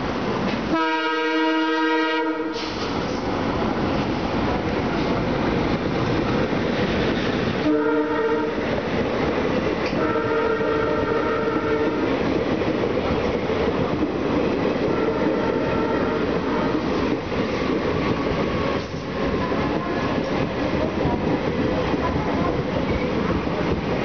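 WDM-3D diesel locomotive's EMD horns blaring: a long blast about a second in, then two more around eight and ten seconds. After the horns, the locomotive and its train keep rolling past close alongside.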